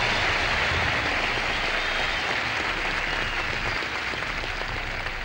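Large concert crowd applauding at the end of a live song, the applause slowly dying down.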